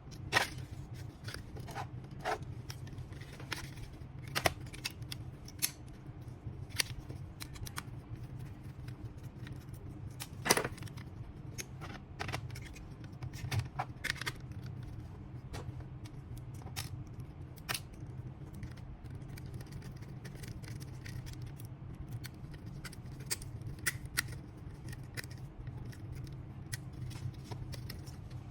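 Irregular small clicks, taps and scrapes of tools and plastic and metal laptop parts being handled during a laptop teardown, over a steady low hum.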